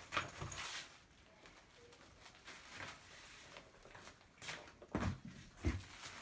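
Rustling and soft knocks of cones of crochet thread being handled and set on shelves, with a couple of heavier thumps about five seconds in.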